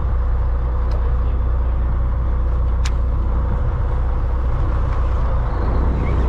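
A fishing boat's engine running with a steady low drone and hum. There is a single sharp click about three seconds in.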